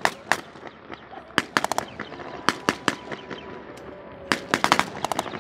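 5.56mm MINIMI light machine gun firing blanks in several short bursts of two to six rounds, with gaps of about a second between bursts.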